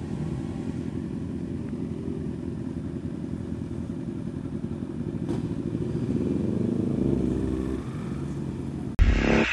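Single-cylinder engine of a Yamaha R15 150cc motorcycle running at low speed, rising a little about seven seconds in. Near the end it cuts suddenly to a loud rushing noise.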